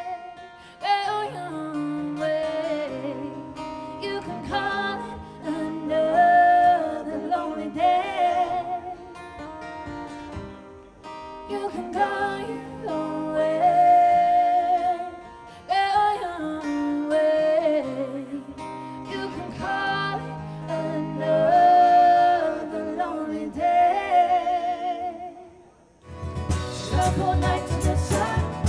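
Live acoustic band: singing with long, wavering held notes over acoustic guitar. Near the end a cajon beat and busier strummed guitar come in.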